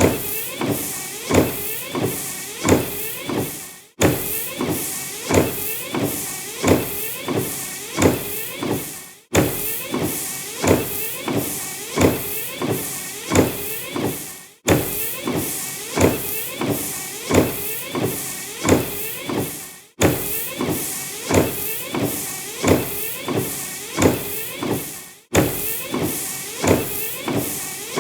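Car windshield wipers sweeping back and forth across the glass, a stroke about every two-thirds of a second, each sweep with a sliding rise and fall in pitch. The sound breaks off for an instant and restarts about every five seconds.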